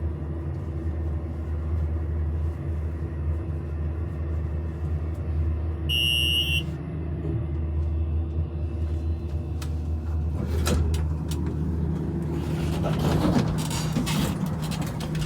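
Hydraulic elevator cab travelling, with a steady low hum. About six seconds in, the floor-passing chime gives one short, high electronic beep, like a smoke detector. From about ten seconds in, some rattling and clatter join the hum.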